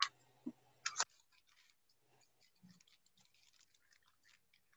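Metal binder clips being handled: a sharp click, a thud and a brief scraping rattle in the first second, then faint scattered ticks.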